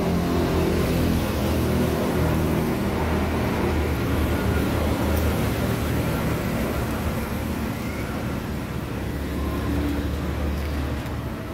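A combustion engine running steadily at idle, a low even hum that weakens near the end.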